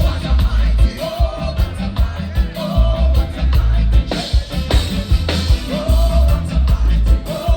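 Live reggae band playing at concert volume: a heavy, pulsing bass line under a male voice singing in short phrases.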